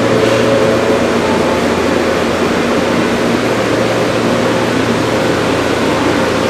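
Shinano Railway 115-series electric train standing at the platform with its doors open: a steady hum and rush from its onboard equipment, unchanging throughout.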